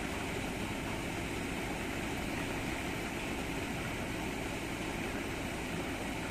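Steady outdoor background rumble and hiss, even throughout with no distinct events.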